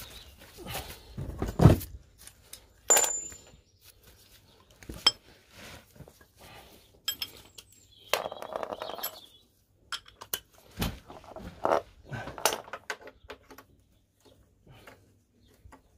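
Irregular metallic clinks and knocks of hand tools and metal parts being handled while draining engine oil, with a short high ring about 3 s in.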